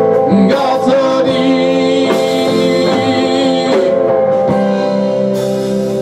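Live rock band with electric guitar, bass guitar and drum kit playing the closing bars of a song. About four and a half seconds in, the final chord is held and rings out, slowly fading.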